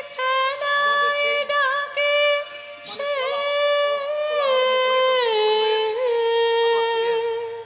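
A single high voice singing a slow, ornamented melody in Indian classical style: long held notes with small glides between pitches, stepping down to a lower held note about five seconds in.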